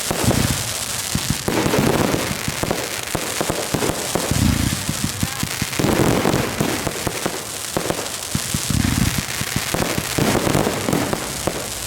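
Consumer fireworks display firing: a dense, continuous crackle of cake and shell effects, with heavier booms about every one to two seconds.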